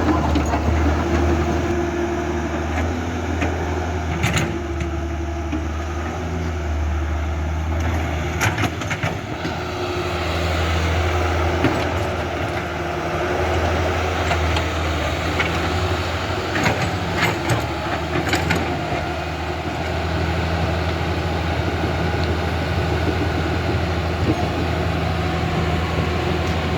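Huina RC excavator running with a steady low motor hum, with a few short clicks and knocks at several points.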